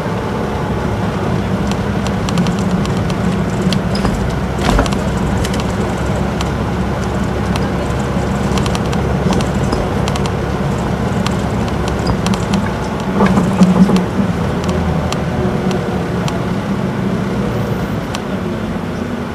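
Interior sound of an Isuzu Erga city bus on the move: the 4HK1 four-cylinder diesel drones steadily through the torque-converter automatic, with small clicks and rattles from the cabin. There is a sharp knock about five seconds in, and a louder swell about two-thirds of the way through.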